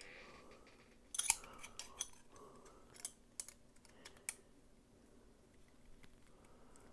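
Parts of a Rike Cybertrix folding knife clicking and tapping together as the metal handle frame and liners are handled and fitted around the blade. A string of sharp clicks starts about a second in and runs for about three seconds.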